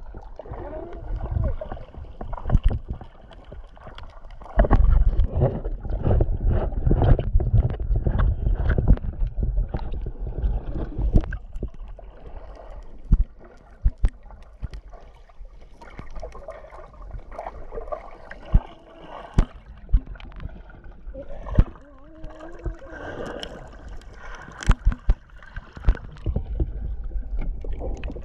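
Muffled underwater water noise picked up by an action camera in its waterproof housing: a low rumble and gurgling with scattered sharp clicks and knocks. The rumble is heaviest from about five to eleven seconds in.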